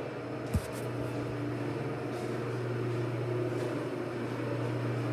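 Garage door opener drive motor of a 1997 Chamberlain LiftMaster screw drive unit running steadily with a low, even hum while it cycles to its down limit, its screw rail detached. A single click about half a second in.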